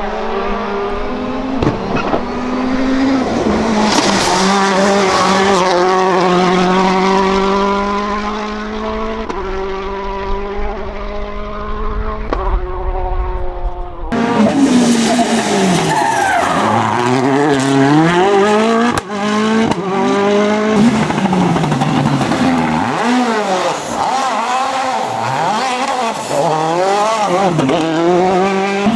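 Citroën DS3 WRC rally car's 1.6-litre turbocharged four-cylinder engine at full throttle, its pitch climbing and then dropping at several upshifts. About halfway the sound changes abruptly to the engine revving up and down in quick swings, with lift-offs and gear changes as through a run of corners.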